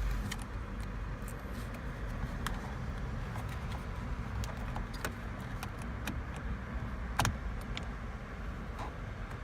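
Scattered small plastic clicks and taps, one sharper than the rest about seven seconds in, as a windshield wiper switch and its electrical connector are pried loose from a steering column with a trim removal tool. A steady low rumble lies underneath.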